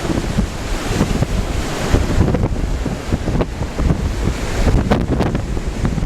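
Tropical-storm wind gusting hard and buffeting the microphone in an irregular, rumbling rush.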